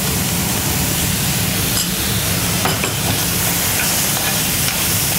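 Chicken breast strips, red onion and carrot strips sizzling steadily in hot oil in a frying pan, with a metal spoon stirring and scraping the food around the pan.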